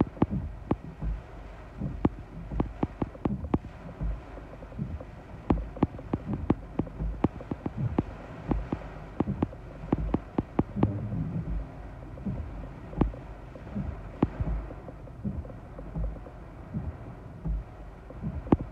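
Rain hitting a car's windshield and roof in many irregular taps, heard from inside the cabin, over deep irregular thuds of wind gusts against the car.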